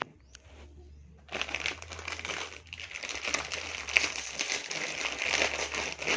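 Plastic Samyang instant-noodle packet crinkling and crackling as it is handled and squeezed, starting about a second in.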